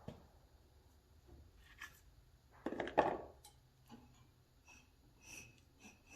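Hydraulic cylinder parts being slid together by hand as a freshly oiled, repacked gland is eased onto the cylinder: faint rubbing and small clicks, with one louder scrape about three seconds in.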